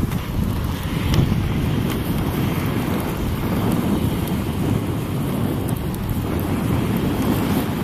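SEBA Luminous 110 mm inline skate wheels rolling fast over pavement: a steady low rumble, with wind buffeting the microphone.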